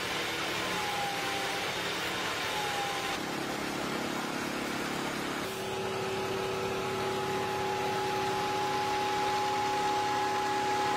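Heavy truck and low-loader trailer machinery running steadily, with a steady whine that joins in about halfway through.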